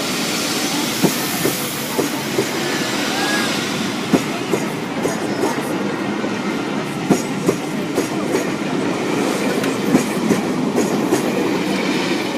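Steam-hauled train rolling along the track: a steady rushing rumble with irregular sharp clicks and knocks from the wheels over the rails.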